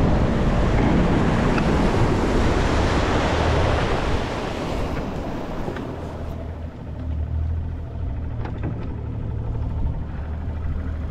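Small fishing skiff under way across a shallow flat: wind and water rush over the microphone above the boat's motor for the first four or five seconds. Then the boat slows and the motor settles to a low, steady hum.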